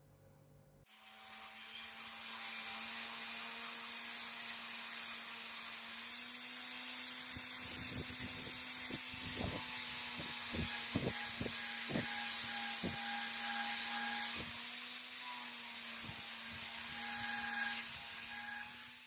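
Handheld power tool switched on about a second in, its motor running steadily with a loud hissing, grinding sound of abrasion against a surface, and stopping right at the end. A scatter of sharp ticks comes through the middle.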